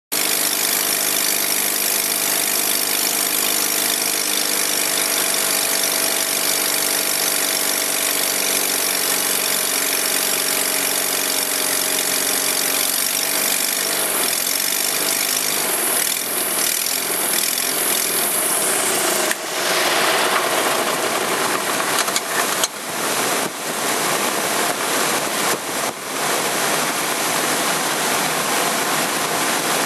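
Legal Eagle ultralight's engine running steadily, then faltering and fading out around the middle as it fails. From about two-thirds in, loud wind rushes over the microphone with gusty buffeting.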